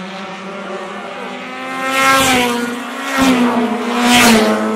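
Race cars running at speed on a track, engines at high revs. Two cars pass close by, about two seconds apart, each a loud swell with the engine pitch dropping as it goes past.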